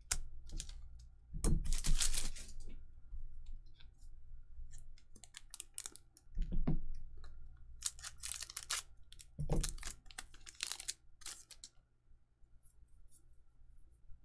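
Weiss Schwarz trading cards being flipped through and laid down on piles: an irregular run of short rustles and slaps, the loudest about two seconds in.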